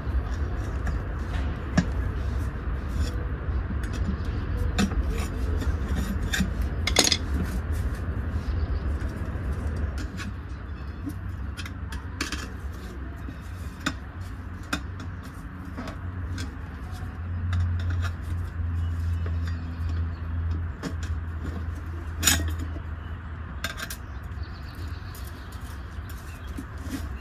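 Metal hand tools clinking and knocking against a small ATV wheel rim while a tire is worked off and on, in scattered separate strikes, the sharpest about seven and twenty-two seconds in, over a steady low rumble.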